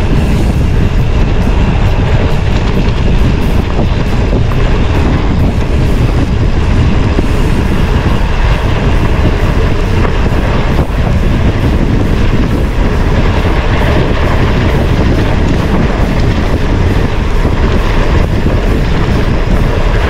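Loud, steady rumble of wind buffeting the camera microphone, mixed with tyre and frame noise from a mountain bike being ridden.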